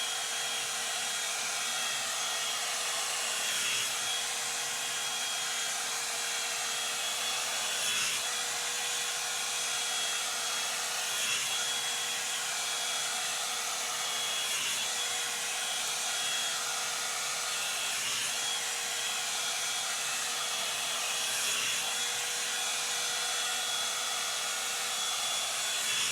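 Revlon One-Step hot-air brush dryer running, really loud: a steady rush of air with a high whine over it. Its sound shifts slightly every three to four seconds as it is drawn through the hair.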